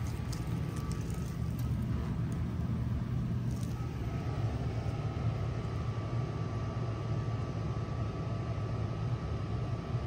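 1996 Bard 3-ton wall-hung heat pump running steadily in cooling mode: an even low hum from the compressor and fan, with a faint steady high tone over it. There is a light click about three and a half seconds in.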